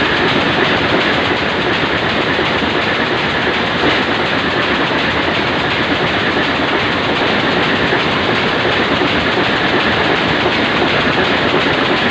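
Ship's main diesel engine running steadily, a loud, even engine-room din.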